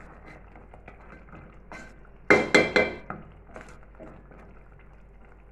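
A ladle knocking against an aluminium cooking pot while crab gravy is stirred: three quick ringing clinks a little over two seconds in, with a lighter knock just before, over faint stirring noise.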